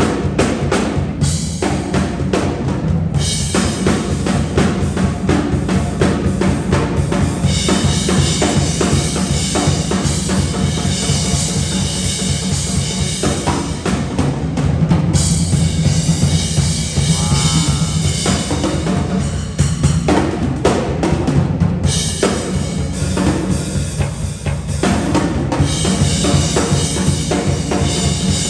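A band playing, with the drum kit out front: a steady kick and snare beat with rimshots under the other instruments.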